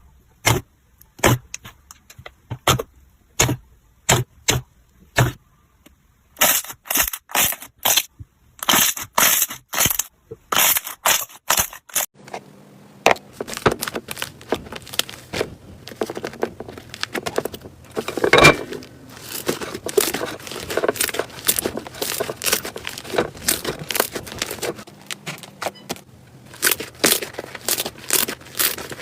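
Slime being pressed and poked by hand, making sharp pops at first, then a long stretch of dense crackling from about halfway through, and sharp pops again near the end.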